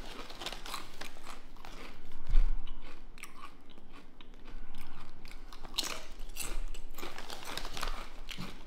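A person biting and crunching thick-cut, extra-crunchy kettle-style potato chips (Firecracker Jimmy Chips) and chewing them, in repeated crisp crunches, loudest about two and a half seconds in.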